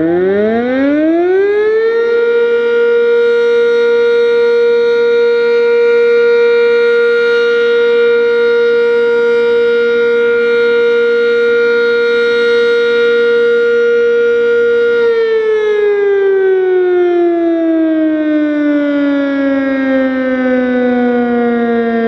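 Sentry 3V8-H outdoor warning siren sounding a short steady alert test. It finishes winding up about two seconds in and holds one steady tone. About fifteen seconds in it shuts off and winds down in a long falling wail.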